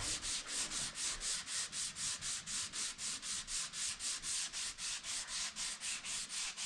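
Sandpaper rubbed back and forth by hand in quick, even strokes, about five a second, a steady rhythmic hiss of final sanding before painting.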